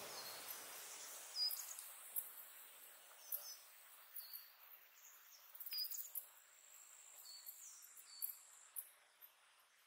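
Faint insects chirping from tall grass, with short high chirps of small birds scattered through.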